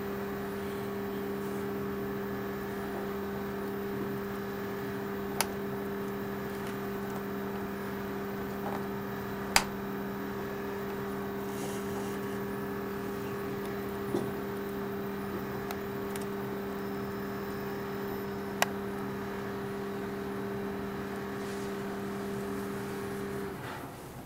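A steady low electrical or motor hum, one tone with its overtone, that cuts off shortly before the end. Four short, sharp clicks come a few seconds apart.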